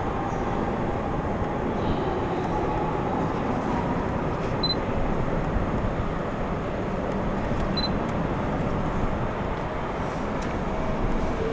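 Steady railway station ambience: a constant rushing noise with faint wavering distant tones, and two short high beeps about three seconds apart.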